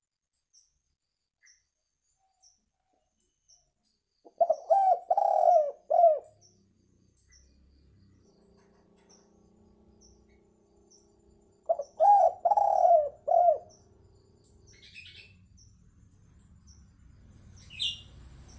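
Spotted dove cooing: two phrases of four or five coos each, several seconds apart. Faint, evenly spaced high ticks run in the background.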